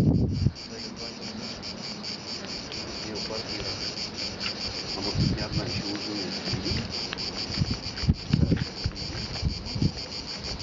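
Cicadas in the pines, a steady high buzzing chorus with a fast pulse. Brief low buffets of wind on the microphone come and go, near the start and again about halfway and near the end.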